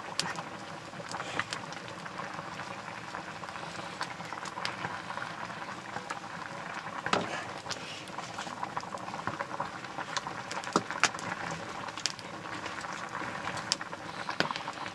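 Nettle greens simmering in an iron wok over a wood fire: steady bubbling with scattered sharper clicks.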